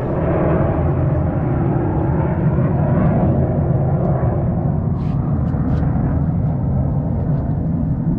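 Jet aircraft rumbling overhead: a loud, steady rumble that holds for several seconds.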